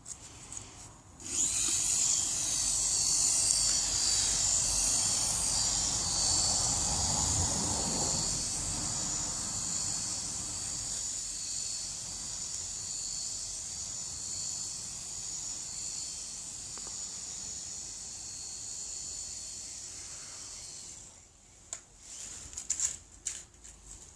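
Small electric motors and spinning rotors of a cheap toy RC helicopter whirring with a high, steady whine, starting about a second in, slowly getting quieter and cutting off near the end, followed by a few light clicks.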